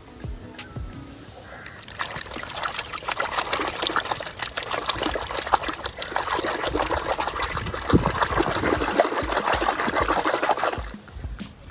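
Water running and splashing, starting about two seconds in and cutting off near the end.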